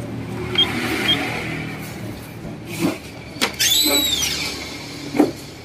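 Canon photocopier being readied for a test copy: two short control-panel key beeps in the first second over a fading machine hum, then knocks and clunks as the document cover is lifted and the original is laid on the glass, with a short squeak that rises and falls in pitch in the middle.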